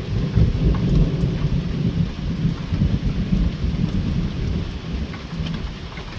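A long, low roll of thunder, loudest about a second in and slowly easing, over steady rain with scattered drops ticking.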